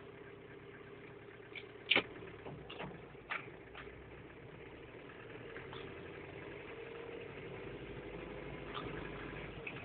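Daihatsu Fourtrak's 2.8 turbodiesel engine running steadily at low speed, heard from inside the cab. A few sharp knocks and rattles come between about one and a half and four seconds in, the loudest about two seconds in, as the 4x4 lurches over the rutted track.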